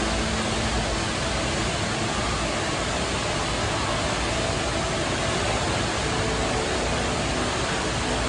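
The Rain Vortex indoor waterfall pouring steadily into its basin: a dense, even rush of falling water.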